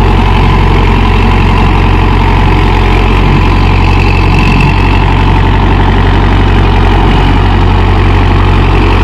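Mahindra Yuvo Tech+ 585 4WD tractor's diesel engine running steadily under load, pulling a five-tine cultivator through the soil: a loud, even hum with a strong low tone.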